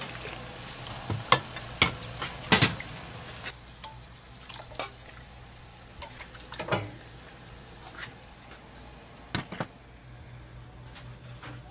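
Stainless steel ladle clinking and scraping against a large stockpot and ceramic bowls as soup is scooped and poured, with a string of sharp clinks and knocks, the loudest about two and a half seconds in. A steady low hum runs underneath.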